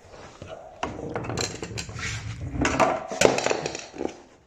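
Irregular clatter and knocking of hard objects being handled and bumped together, a quick run of sharp knocks with the loudest strikes just past the middle.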